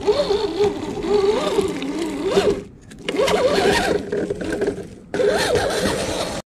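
Electric motor and drivetrain of an RC crawler truck whining, the pitch rising and falling with the throttle. It comes in three stretches with abrupt breaks between them and cuts off suddenly near the end.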